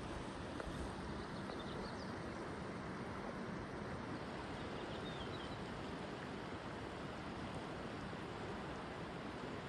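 River water running over boulders, a steady rush, with faint bird chirps about two seconds in and again about five seconds in.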